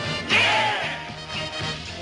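Upbeat band music with a steady bass line and a loud accent about a third of a second in; no lead vocal.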